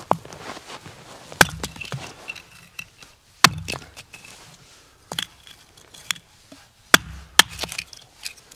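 Hatchet chopping firewood into kindling on a wooden chopping block: about six sharp blows, irregularly spaced a second or two apart.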